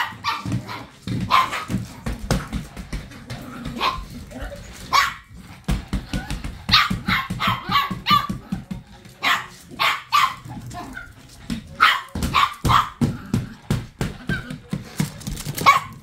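Small dog barking and yapping again and again, in rapid clusters of sharp barks, at a cordless stick vacuum being pushed at it.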